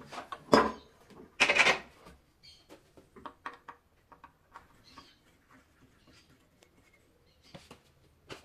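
Tools and metal hardware handled on a wooden workbench: two louder clatters, about half a second and a second and a half in, then a string of light clicks and taps.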